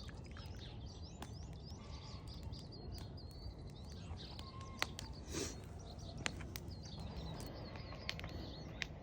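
Small birds chirping over and over, with a few sharp clicks and a brief short noise about halfway through, over a steady low background noise.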